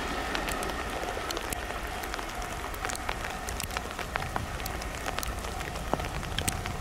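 A JR West limited express train receding into the distance after passing, its sound fading to a faint hum and rush over a steady low wind rumble on the microphone, with many scattered light ticks.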